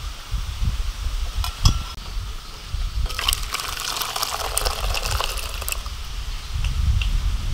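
Thin sauce with chopped garlic and chilli poured from a wok into a glass bowl, splashing for about two and a half seconds starting about three seconds in. A couple of sharp clinks come first, about a second and a half in.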